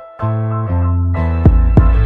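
Background music: sustained electric-piano chords, with deep kick-drum hits coming in about a second and a half in.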